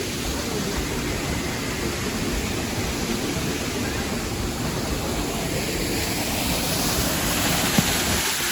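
Waterfall's rushing water heard close by, a steady, even noise, with one short click near the end.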